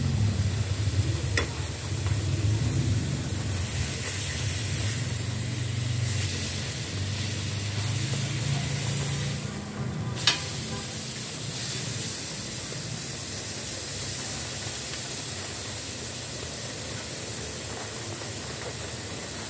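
Steak and asparagus sizzling in butter on a ribbed grill pan, a steady hiss, with a low rumble underneath for the first half. A sharp clack of metal tongs on the pan about ten seconds in, as the steak is turned.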